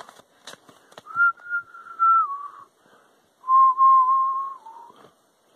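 A person whistling two drawn-out notes, the first starting about a second in and the second just past the middle; each wavers a little and drops in pitch at its end. A few faint clicks come before the first note.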